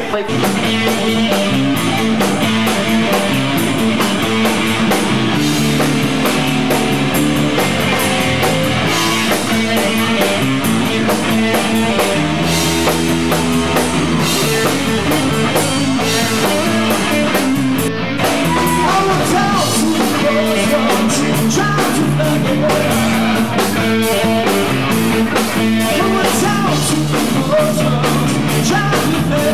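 Live rock band playing electric guitar and drums, with a harmonica played into a hand-held microphone.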